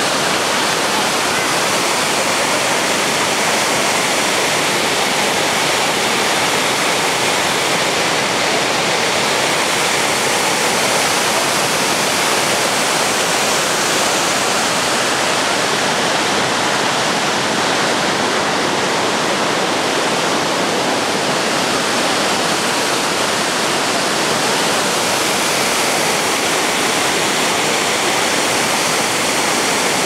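Fukiware Falls, a wide curtain waterfall, pouring heavily over its rock ledge: a loud, steady, unbroken rush of falling water.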